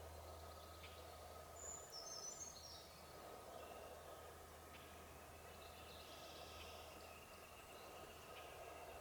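Faint outdoor ambience with a few quick, high bird chirps about two seconds in, and a thin steady high note from about five seconds on.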